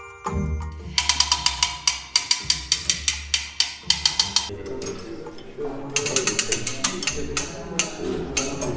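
Hand winding of an 1813 turret clock movement: the ratchet and pawl on the winding wheel click rapidly, about five or six clicks a second, in two runs with a short pause between. Background music plays underneath.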